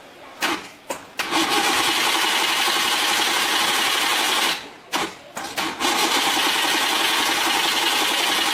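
Loud machine noise, starting in short blips and then running steadily for a few seconds; it cuts out about halfway and starts again the same way.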